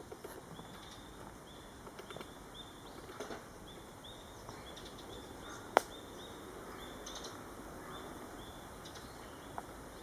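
Footsteps scuffing on a paved path while walking, with a short high chirp repeating about twice a second in the background and one sharp click about six seconds in.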